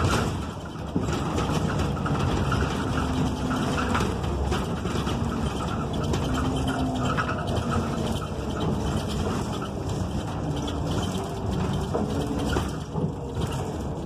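Cabin sound of a NABI 45C-LFW articulated city bus under way: its Cummins Westport ISL G natural-gas engine and Allison transmission run with an engine note that shifts in pitch, over steady road noise and the rattling of interior fittings.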